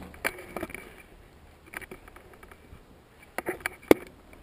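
Footsteps and scuffs on a gritty concrete floor as a player moves quickly through an empty room, a scattering of irregular knocks with a quick cluster and one sharp, loud knock near the end.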